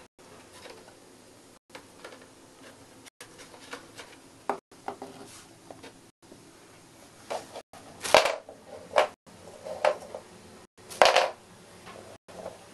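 Irregular scrapes and knocks of a hard bone-shaped dog biscuit dragged and bumped across a wooden floor and against a cardboard box by a hamster. Two louder scraping rasps come in the second half.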